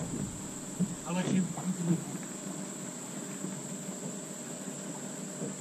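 Steady high-pitched drone of insects, with a faint voice briefly about a second in.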